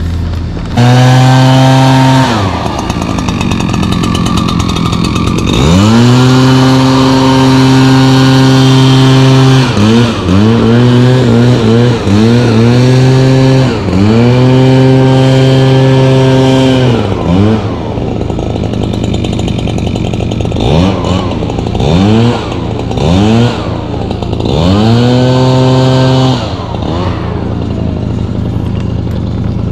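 Small gasoline engine of handheld lawn equipment revving up to full speed and dropping back to idle again and again. Several runs of a few seconds at full throttle alternate with quick short blips of the throttle.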